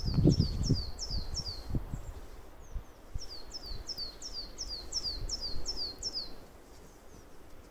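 A small songbird singing runs of quick, high notes that each fall in pitch, about four a second. One run ends about a second and a half in, and a longer one goes from about three seconds to six. Low rumbling thuds sound in the first second or two.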